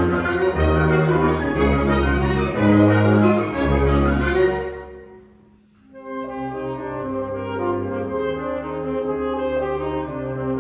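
Wind orchestra playing a loud passage with heavy low brass, which dies away about five seconds in; after a brief hush the band comes back in more softly with held chords.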